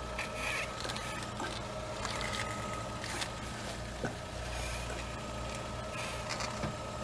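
Lada Vesta idling with a steady low hum and a thin steady whine, while brief rough rubbing noises come and go from the front suspension as the steering wheel is turned. This is a noise from the left front strut on cold mornings with new struts, which the owner first took for the strut-mount bearing.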